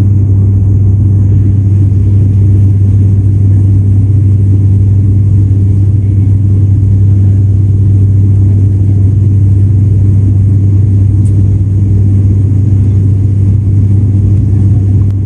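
Cabin drone of an ATR 72-500 turboprop in flight, heard from inside the cabin: a loud, steady low hum from the propellers and engines over a constant rumble.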